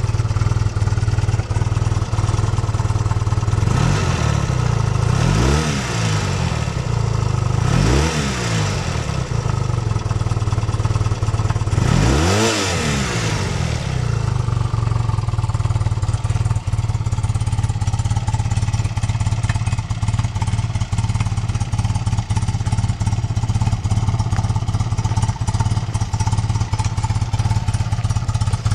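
1993 BMW R80RT's air-cooled boxer twin engine idling steadily, revved three times: briefly at about four and eight seconds in, then higher at about twelve seconds, each rev rising and falling back to idle.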